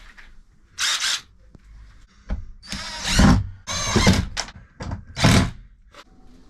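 Power drill running in about six short bursts of a second or less, the sound of screws being driven into plywood panels.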